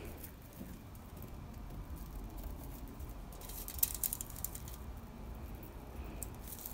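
Faint rustling and crinkling of aluminium foil with a light patter of glitter grains as a hand works glitter onto a glue-coated piece; a short crinkle a little past the middle is the loudest moment.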